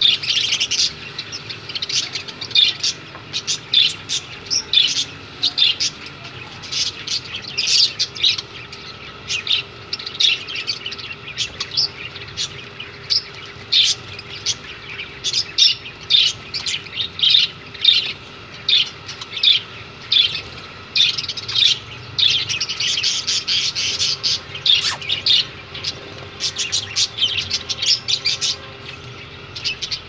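A flock of budgerigars chattering: many short high chirps one after another, densest near the start and again about three-quarters of the way through.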